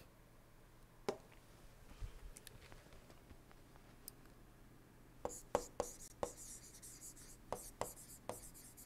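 Faint stylus writing on an interactive display screen: a single tap about a second in, then from a little past halfway a run of quick taps and scratches as the pen strokes out letters.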